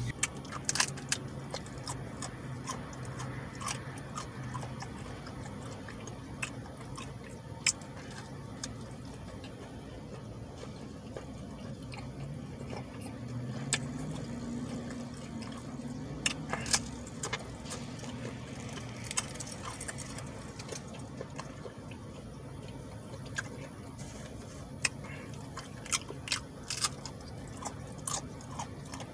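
A man chewing and biting into soft tacos, with many short wet mouth clicks and smacks scattered throughout over a faint steady low hum.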